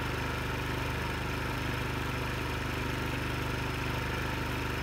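WEN 56203i inverter generator idling steadily with no load on it.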